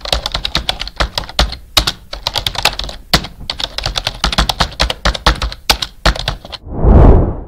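Rapid, irregular keyboard typing sound effect, many keystrokes in quick succession, played as the quotation text appears. Near the end the typing stops and a swelling rush of noise rises and fades, like a whoosh transition.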